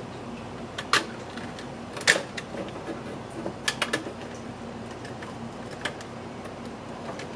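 Sharp plastic clicks and knocks as the cover of a 3D-printed electronics box is handled and taken off, a handful of separate clicks with the loudest about two seconds in, over a steady low hum.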